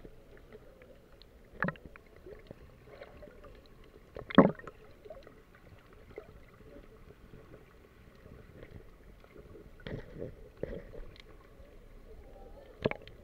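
Muffled water sound heard through an underwater camera held just below the surface: low sloshing and gurgling, broken by four short knocks, the loudest about four seconds in.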